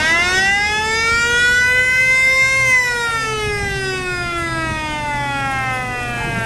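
A siren rising in pitch for about two and a half seconds, then falling slowly, with military truck engines running underneath.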